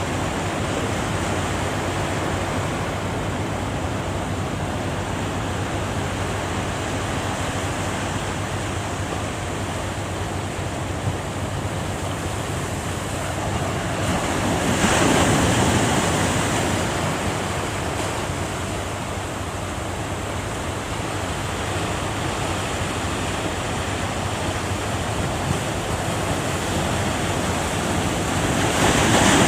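Ocean surf breaking at a river mouth, with wind buffeting the microphone; a louder wave crashes about halfway through and another right at the end.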